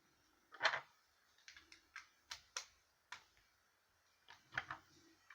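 Lego bricks being pressed onto a model and handled, a series of irregular small sharp clicks, the loudest about half a second in and another cluster about two to three seconds in.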